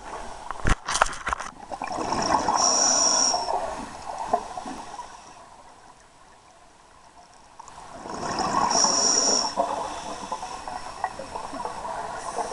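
Scuba diver breathing through a regulator: two breaths with a rush of exhaled bubbles, the first about two seconds in and the second about six seconds later, with a quieter pause between. A few sharp clicks near the start.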